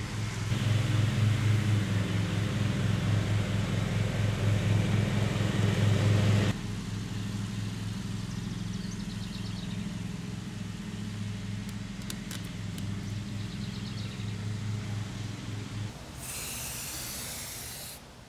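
Steady low machine hum, like a small motor running, which drops in level about six and a half seconds in. Near the end comes a short high hiss, a spray can being sprayed at the base of the pipe post.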